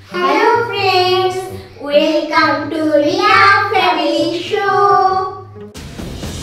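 A young girl and a woman singing a short tune together in long held notes. Near the end the singing stops and lively background music cuts in.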